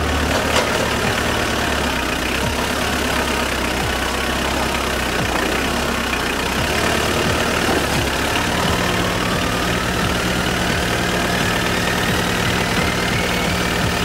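Nissan Patrol's diesel engine running as the 4x4 wades through a muddy stream crossing, with water splashing; its note rises slowly over the second half.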